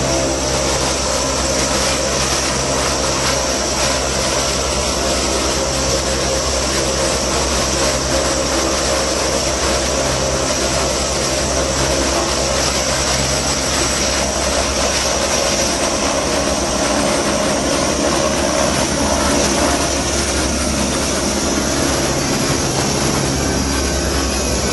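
Helicopter engine and rotor running steadily: a loud, even drone with a constant high whine above it.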